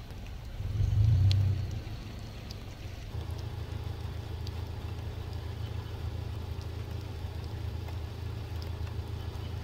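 Rain falling during a thunderstorm, with faint scattered drop ticks over a steady low hum, and a low rumble of thunder swelling and fading about a second in.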